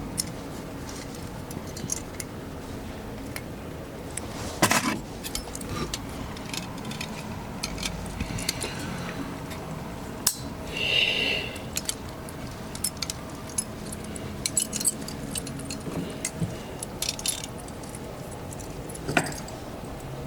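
Small metal pieces clinking and tapping in scattered light clicks, with a louder knock about five seconds in and a brief ringing metallic chime about eleven seconds in, over a faint steady hum.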